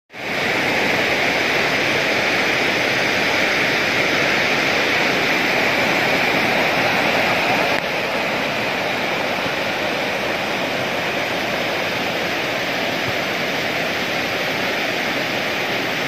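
Rushing water of a rocky stream and waterfall: a loud, steady rush of white water over rocks that drops slightly in level about eight seconds in.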